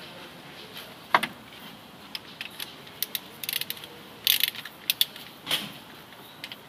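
Hand tools on a car engine during a spark-plug change: a ratchet wrench clicking in short quick runs, with sharp metallic clinks, one loud clink about a second in.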